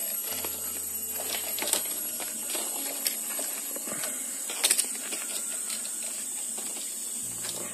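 A steady high-pitched drone of forest insects, with irregular clicks and crackles of rattan being handled and woven into a bubu fish trap.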